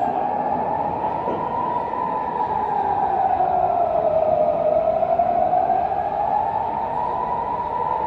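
Civil-defence air-raid warning siren wailing, its pitch rising and falling slowly about once every six seconds, over a steady background hiss.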